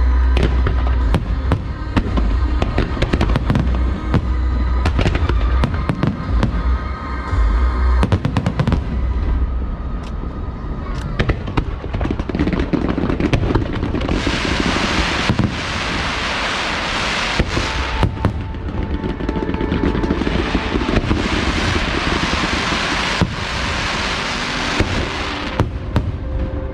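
An aerial fireworks display bursting in quick succession, with many sharp bangs and heavy low booms over music in the first several seconds. From about halfway in, long stretches of dense crackling fireworks take over.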